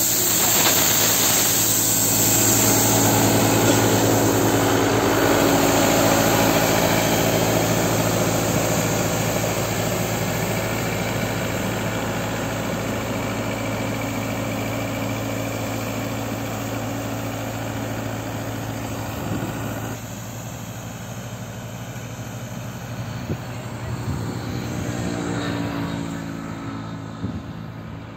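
Engine of a ride-on road line-marking machine running steadily. It is loud close by at first and fades gradually as the machine moves away.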